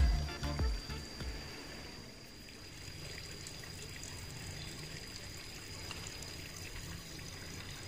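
Faint, steady trickle of river water over rocks, with a thin steady high tone running alongside.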